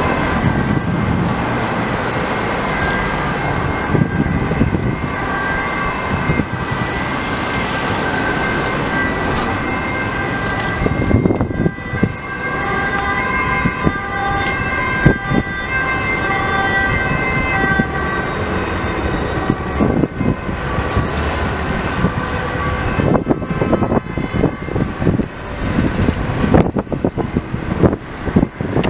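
Several emergency vehicle sirens sounding at once over road traffic, as vehicles on an urgent blue-light run approach. From about two-thirds through, the siren tones fade and engine and traffic rumble takes over.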